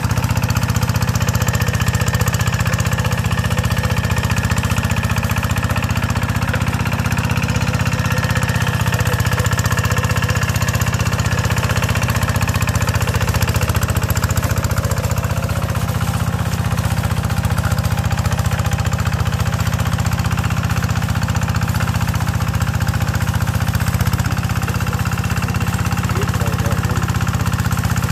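Walk-behind two-wheel hand tractor's single-cylinder diesel engine running steadily under load as it pulls a plough with iron cage wheels through wet paddy mud.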